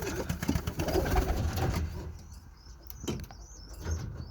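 Birmingham Roller pigeons cooing in low murmurs for the first couple of seconds, with a few sharp clicks. From about two seconds in, a thin, high, wavering bird call runs over a quieter background.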